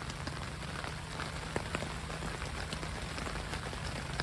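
Rain falling on a tarp shelter: a steady hiss with many separate drops ticking sharply on the fabric, over a steady low hum.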